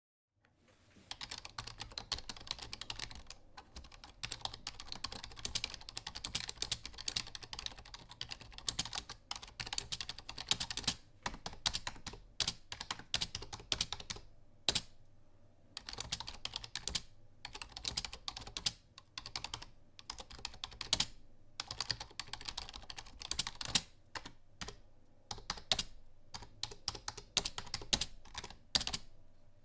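Rapid typing on a computer keyboard, dense key clicks in flurries broken by short pauses, starting about a second in.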